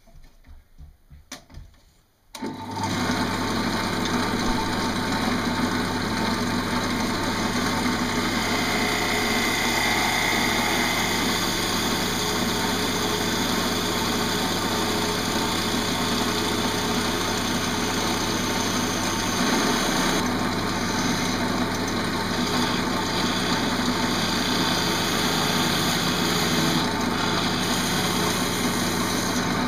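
A wood lathe starts up about two seconds in and runs steadily, with a bowl gouge cutting shavings from the inside of a green pear-wood bowl. A few faint ticks come before the start.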